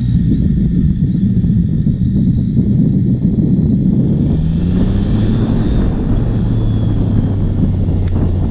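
Yamaha XSR900's three-cylinder engine pulling the bike along on the road, its revs climbing around the middle and then settling lower.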